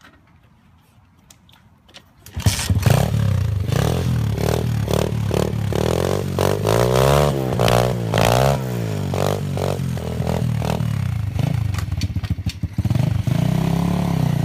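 A small gasoline engine bursts into life about two seconds in and runs loudly, revving up and down over and over as the machine is ridden.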